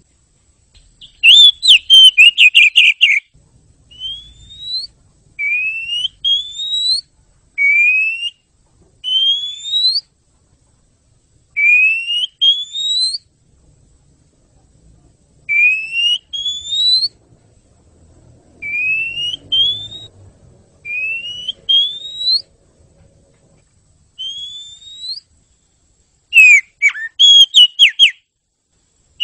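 Oriental magpie-robin singing: a loud burst of rapid chattering notes, then a long series of clear rising whistles, one or two at a time, a second or two apart, and another chattering burst near the end.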